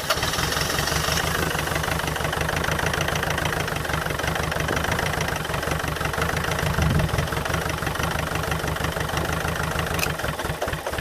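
Land Rover Freelander 2.0 TD L-series diesel engine being cranked over by its starter, rhythmic and steady but not catching, until the cranking stops near the end. It will not start because an air leak in the fuel pipes is starving it of fuel.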